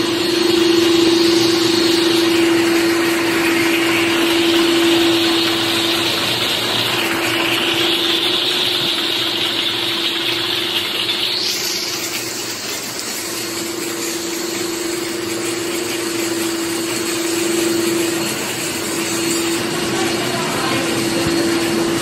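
Rotary tablet press and its conveyor line running: a steady machine drone with a constant motor hum and a hiss over it.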